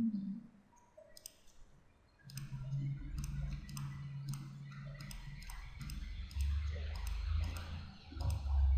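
Computer mouse buttons clicking repeatedly, about two clicks a second, as segments are picked one after another. A low steady hum runs underneath from about two seconds in.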